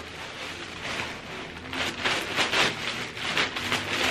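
Plastic courier bag and clear plastic wrapping crinkling and rustling as they are handled and opened, louder in the second half.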